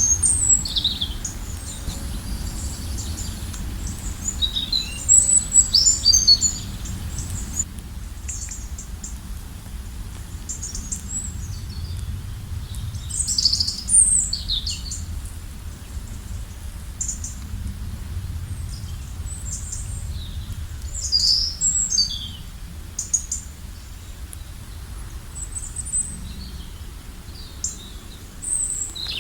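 Songbirds chirping, with quick runs of high calls again and again, over a steady low rush of flowing river water.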